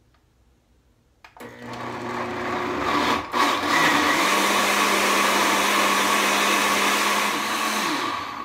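Countertop blender switched on about a second in, puréeing soaked dried chiles and chipotle in broth into a smooth sauce. It runs steadily with one brief dip near the middle, then the motor winds down in pitch and stops near the end.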